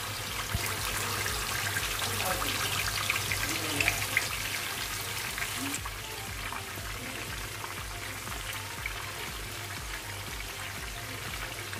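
Turmeric-and-yogurt marinated chicken leg pieces sizzling as they deep-fry in hot oil and ghee in a pan, while more pieces are laid in by hand. The sizzle is a little louder in the first half and eases slightly about halfway through.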